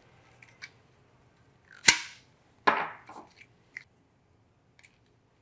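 Sharp clicks of a Peak Design Travel Tripod's push-button ultralight foot being released and pulled out of a carbon fiber leg: a loud snap about two seconds in, a second one under a second later, then a few light ticks.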